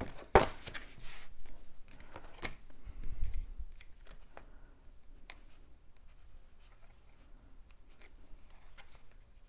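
Paper and cardstock being handled on a craft table: rustling, a sharp tap about half a second in, a dull thump around three seconds in, then faint scattered ticks.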